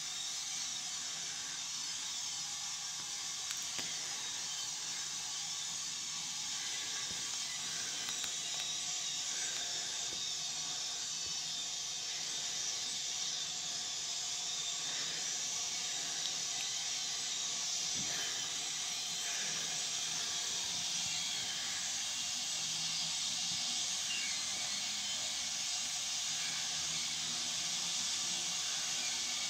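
A steady high-pitched hiss of noise, unchanging throughout.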